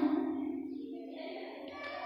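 A short pause between a woman's spoken words, filled by a faint steady low hum.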